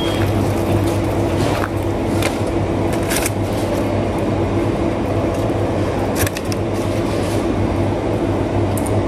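A steady low mechanical hum with a few short light clicks.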